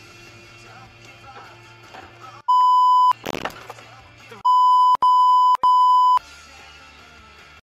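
Edited-in censor bleeps: one loud steady beep lasting about half a second, then after a short noisy burst three more beeps in quick succession, each cutting out the soundtrack. Quiet background music plays before and after.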